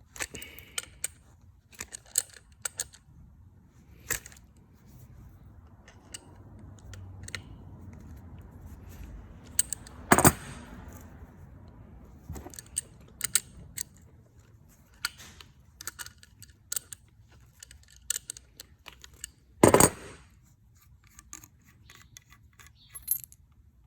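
Small metal and plastic parts of a pressure washer trigger gun being handled and taken apart: scattered light clicks and taps, with two louder knocks about ten and twenty seconds in.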